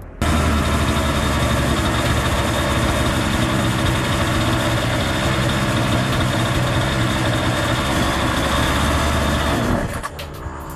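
Partner 350S chainsaw's small two-stroke engine idling steadily while its idle-speed (T) screw is adjusted. It cuts off abruptly near the end.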